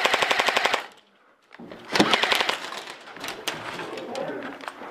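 Airsoft electric rifle firing rapid full-auto bursts: one burst ends about a second in, and after a short pause a second burst starts, followed by scattered shots and clatter.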